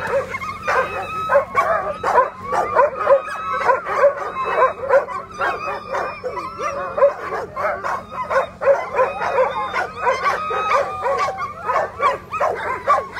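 A harnessed team of Alaskan husky sled dogs barking, yipping and howling together in a continuous, excited chorus of many overlapping voices. This is the noise of dogs eager to run as teams get ready to leave the start.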